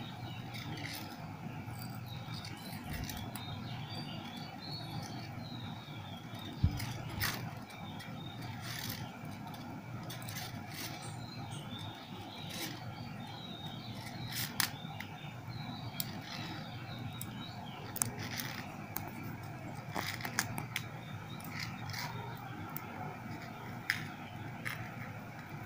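Faint handling sounds of thread being wound around a pen to bind on a fishing rod line guide: scattered small clicks and scrapes over a steady low hum.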